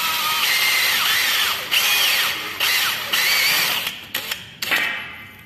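DeWalt brushless cordless drill running a 4 mm twist bit into an aluminium channel handle, its whine rising and falling as the bit cuts, with two brief dips. The motor stops about four seconds in, followed by a few short bursts near the end.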